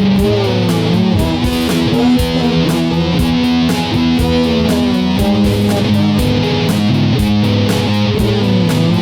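Rock music with electric guitar, bass and a steady drum beat; the pitched lines bend up and down throughout.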